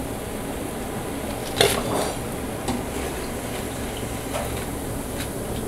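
Chicken pakoras sizzling in hot oil while a wire-mesh skimmer scoops them out. The skimmer clinks sharply against the pan about one and a half seconds in, and knocks lightly a few more times after.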